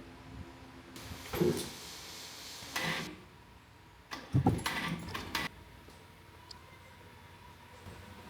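Metal parts of a CNC rotary table being handled, clanking and rattling in three bursts, about one, three and four-and-a-half seconds in, the last the loudest.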